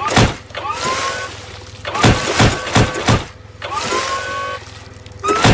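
Cartoon sound effects of a forklift running while its forks are rammed repeatedly into a beached whale. Each hit is a sharp wet impact followed by a short rising squeal, over the steady hum of the engine.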